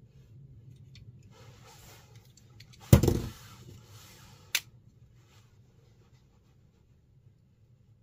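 A small aluminium flashlight being handled: light rustling, one loud knock about three seconds in, and a sharp click about a second and a half later.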